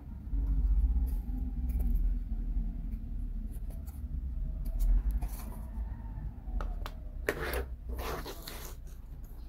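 Thin laser-cut plywood model pieces being handled and set down on a plastic cutting mat: scattered light clicks and taps, then a short run of louder scraping and sliding about three-quarters of the way in, over a steady low rumble.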